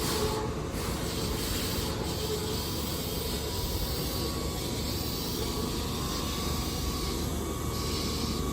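Keihan 8000-series electric train at a station platform: a steady hum and hiss, with a faint tone that fades out in the first couple of seconds.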